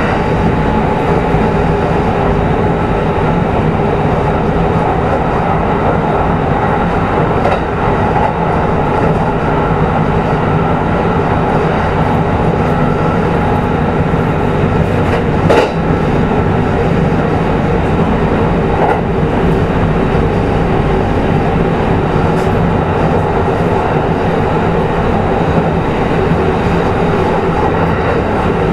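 Kintetsu 22000-series electric train heard from inside motor car Mo 22117, running steadily: a continuous rumble of wheels on rail with a faint steady hum. A single sharp click comes about halfway through.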